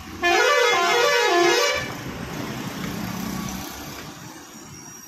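A vehicle's multi-tone musical horn sounds a short tune of tones stepping up and down for about a second and a half, then a quieter steady vehicle hum follows.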